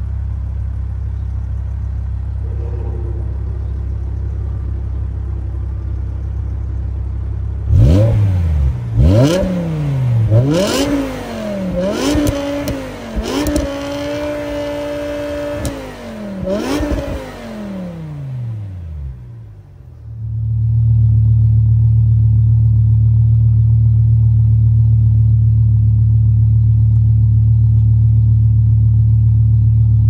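Stock BMW E60 M5's V10 idling through its factory exhaust, then revved in several quick blips and held briefly at high revs, near 7000 rpm, before falling back. About two-thirds of the way through it gives way to the much louder steady idle of an E60 M5 with a full 70 mm Supersprint exhaust.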